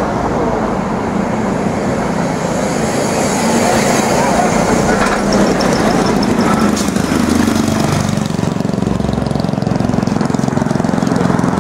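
Steady city street noise of road traffic, with vehicle engines running.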